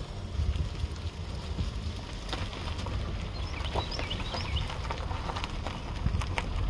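Wind rumbling on the microphone, with footsteps on grass and a few short bird chirps about halfway through.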